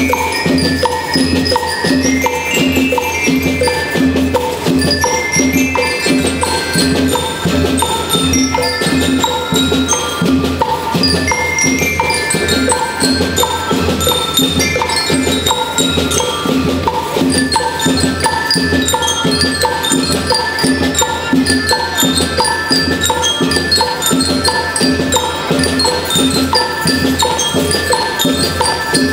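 School rhythm band playing: metal bell lyres carry a bright melody over a steady drum and percussion beat of about two strokes a second.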